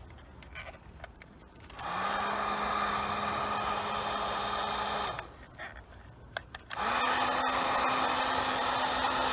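Handheld heat gun switched on about two seconds in, its fan motor spinning up to a steady hum under a rush of hot air. It is switched off a few seconds later, then on again about a second and a half after that, and keeps running. It is warming the ends of stiff, old hoses to soften them.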